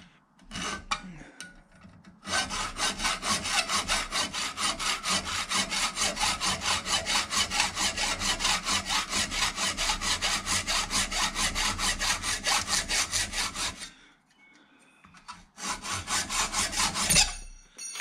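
Hacksaw cutting through a thin metal strip held in a bench vise: a long run of fast, even back-and-forth strokes, a short pause, then a few more strokes finishing the cut, with a sharp knock near the end.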